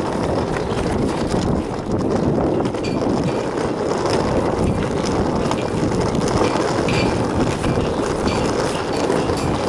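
Hard wheels of a rolling suitcase rattling and rumbling steadily over rough asphalt, with small clicks from bumps in the pavement.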